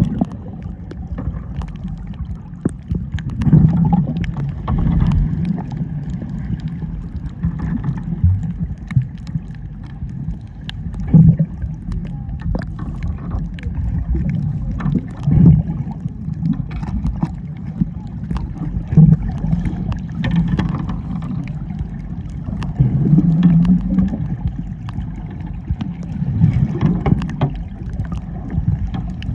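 Muffled sloshing and gurgling of sea water with a low rumble that swells and fades, and a few scattered faint ticks.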